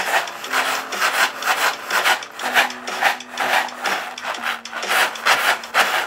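Homemade shaker of two stapled paper plates filled with dry grains, shaken in a steady rhythm of about three shakes a second, the grains rattling and swishing against the plates.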